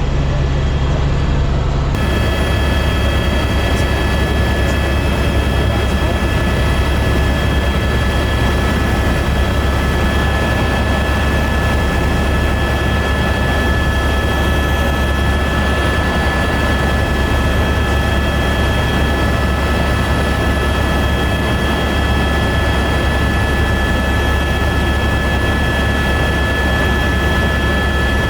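Helicopter in flight: a loud, steady drone with several constant high whining tones over it.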